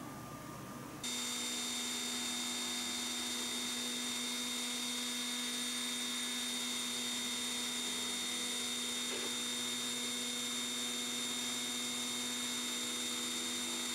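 CNC router spindle running at a steady speed while it mills small round plugs out of plywood: an even hum with a steady high whine, starting abruptly about a second in.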